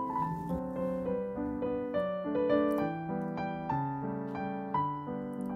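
Background piano music: a gentle melody of single notes and chords.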